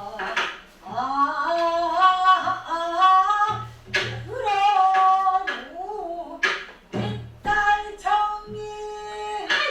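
A pansori singer holds long, wavering, ornamented sung notes, with occasional low strokes of the buk barrel drum beneath.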